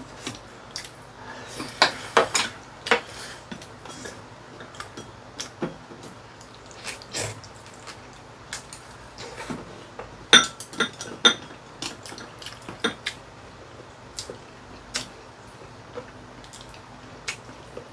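Chopsticks and spoons clicking and clinking against ceramic bowls and a pan during a meal, in scattered taps that bunch together about two seconds in and again around ten seconds, with eating sounds of chewing.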